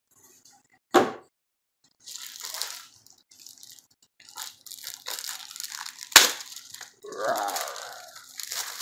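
Clear plastic wrapping on a new laptop rustling and crinkling as it is handled and lifted out of its box. Two sharp knocks cut through it, about a second in and a louder one about six seconds in.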